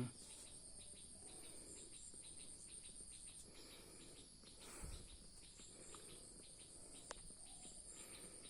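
Faint, steady high-pitched chirring of crickets, with a soft low thump about five seconds in and a sharp click about two seconds later.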